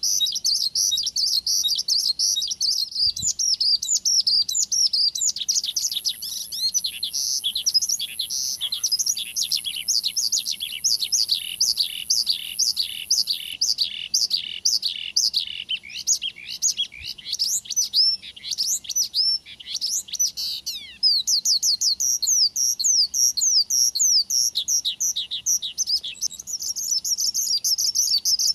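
Male branjangan (Javanese bush lark) in full, continuous song. Dense rapid warbling at the start and end; in the middle, a long run of quick repeated down-slurred notes, about three to four a second. A lure song meant to set a kept branjangan singing in reply.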